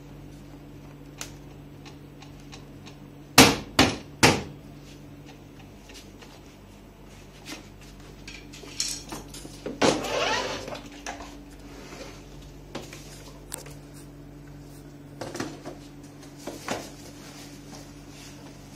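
Three sharp knocks in quick succession on the hard plastic body of a battery-operated ride-on toy motorcycle during assembly. They are followed by scattered clattering and knocking as the body and a wheel are shifted and handled, over a steady low hum.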